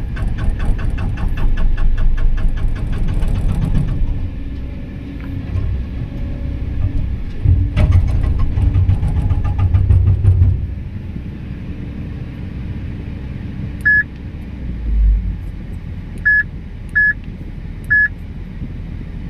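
Excavator-mounted hydraulic rock breaker hammering in a rapid, even train of blows for about four seconds over the excavator's diesel engine. The engine works hard again for a couple of seconds partway through, then drops to a lower steady running, with four short beeps in the last few seconds.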